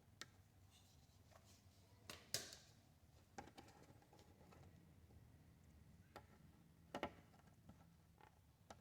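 Near silence with a few faint, scattered taps and clicks of fingers working a rubber grommet through a motorcycle windscreen's mounting hole.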